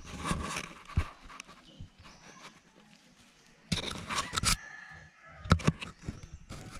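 Macaques handling an action camera: hands rubbing and scraping over the housing and microphone in irregular bursts, with a few sharp taps and knocks, the loudest a pair about five and a half seconds in.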